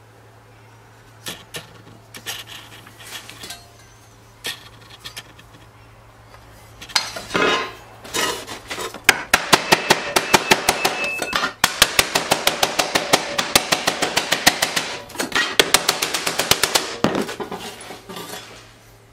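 Thin sheet-metal plate on a plywood bench being hammered with a nylon-faced hammer, dishing round dents into it. A few scattered taps at first, then a long fast run of blows, several a second, that slows and stops near the end.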